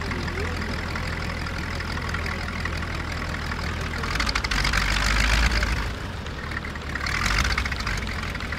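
VL Viima II biplane's Siemens-Halske Sh 14A seven-cylinder radial engine running at low power as it taxis, with its propeller turning. The engine swells louder twice, about four seconds in for a couple of seconds and again briefly near the end.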